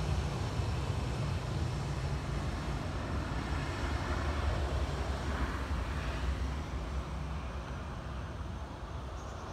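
Boeing 737-800's two CFM56-7B turbofans running at low taxi thrust as the airliner turns onto the runway: a steady low rumble with a faint high whine, easing slightly in the last few seconds.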